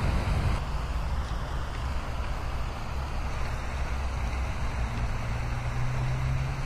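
Steady low rumble of road traffic, with a low, even hum joining about five seconds in.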